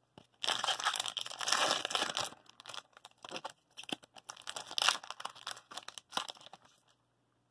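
Foil wrapper of a 2019-20 Tim Hortons hockey card pack crinkling and tearing as it is ripped open by hand: a dense run of crackling for the first couple of seconds, then scattered crinkles that stop about a second before the end.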